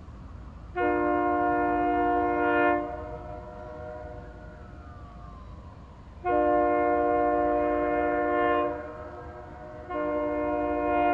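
Chime air horn of a GE B23-7 diesel locomotive blowing two long blasts about two seconds each, a few seconds apart, with a third starting just before the end: a grade-crossing horn sequence as the locomotive approaches a road crossing. A steady low rumble underlies it.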